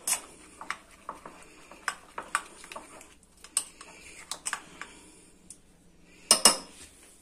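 A steel spoon stirring thin maida (plain flour) batter in a glass bowl, clinking irregularly against the glass, with a louder pair of clinks about six seconds in.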